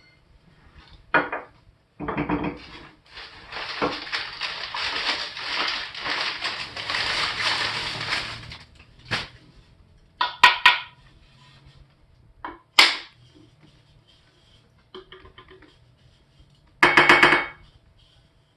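Unpacking a parcel of aluminium soda cans: several seconds of rustling packing material, then a few separate sharp knocks and clinks of cans being handled, with a louder clatter near the end.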